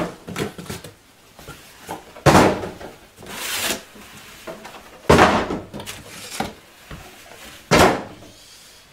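Cardboard divider inserts being pulled and slid out of a cardboard shipping box: several separate scrapes and rustles of cardboard on cardboard. The loudest come about two, five and eight seconds in.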